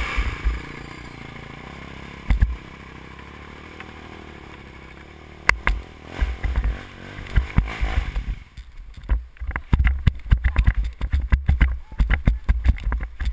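Kawasaki KFX 400 quad's single-cylinder engine idling steadily, with a couple of sharp knocks. From about eight seconds in, a run of irregular thumps and rattles as the quad rides over rough trail.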